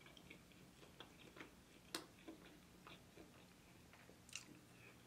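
Near silence broken by faint, scattered clicks of closed-mouth chewing on boneless chicken wings, with a slightly sharper click about two seconds in.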